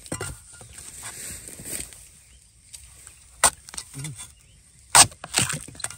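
Machete chopping into the base of a wild bamboo shoot, a few sharp, loud chops: one right at the start, one about three and a half seconds in, and two in quick succession near the end.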